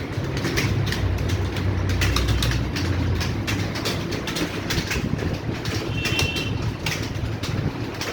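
Many computer keyboards clattering at once, a dense, irregular run of key clicks from a roomful of people typing at speed during a timed typing test, over a low hum.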